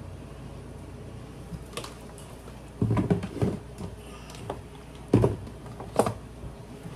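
Kitchen handling noises: a series of knocks and clicks of seasoning containers and utensils being handled and set down on the counter. They start about two seconds in, bunch up around three seconds, and the sharpest knocks come about five and six seconds in.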